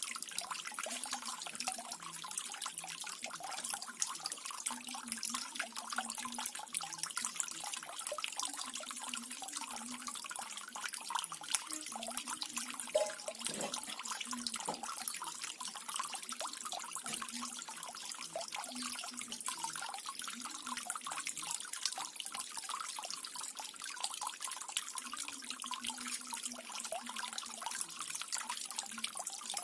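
Small garden waterfall: water falling and splashing steadily in a continuous trickle.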